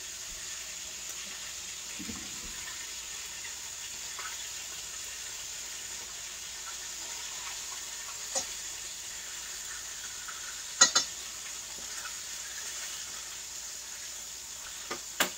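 Steady sizzle of oil frying in a pan on the stove. A few sharp knocks break through it, the loudest a quick pair about two-thirds of the way through.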